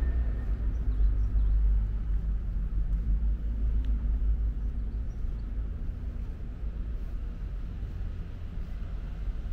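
Low, steady rumble of city traffic, with a few faint high chirps.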